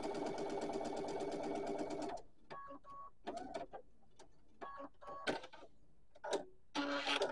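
Electric sewing machine stitching a quarter-inch seam at a fast, even rate, stopping about two seconds in. Several short clicks and whirs follow as the machine is brought to rest and the fabric is handled.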